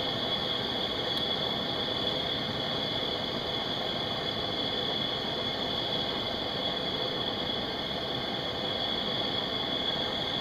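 Propane camp stove burner hissing steadily under a stockpot of water with crayfish in it, the water heating back up toward a rolling boil.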